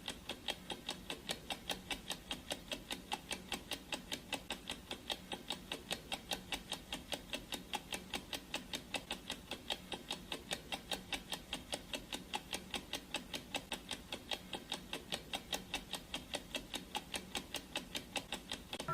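Clock-ticking sound effect of a countdown timer: an even, steady tick at about four ticks a second.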